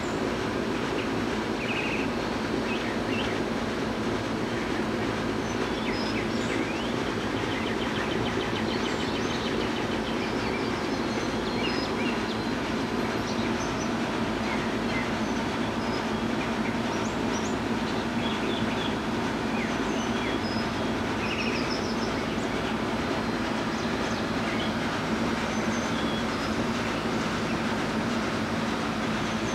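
A loud, steady rushing noise with a low hum runs throughout, and small birds chirp faintly and briefly many times over it.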